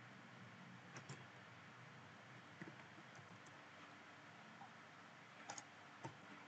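Faint, scattered computer keyboard key clicks, a few at a time, over a low steady hiss.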